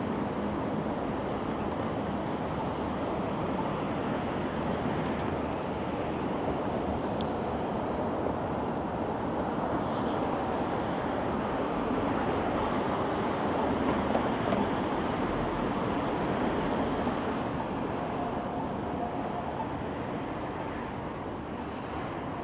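Steady rushing noise of city street traffic mixed with wind. A faint steady whine comes in near the end.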